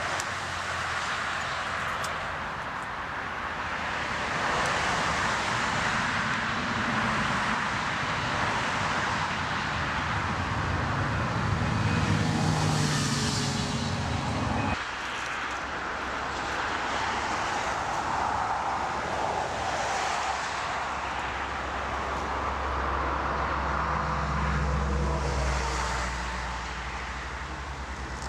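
Airliner engine noise at an airport: a steady jet rush that swells and fades as aircraft move, breaking off abruptly about halfway through into a different stretch of aircraft engine sound.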